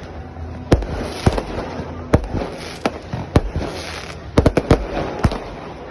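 Fireworks going off: sharp bangs every half second or so, with a quick run of four bangs about four and a half seconds in, over steady crackling between them.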